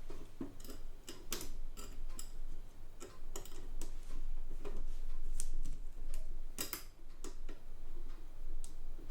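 A screwdriver driving a screw into a Facit ESA-0 calculator: irregular clicks, about two or three a second, some louder than others.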